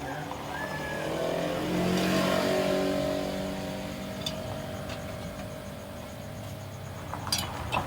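Tuned Vespa PX two-stroke scooter engine, fitted with a PE28 carburettor and reed-valve intake, revved up to a peak about two seconds in, then held at a fairly steady speed that eases off slightly. A few sharp clicks near the end.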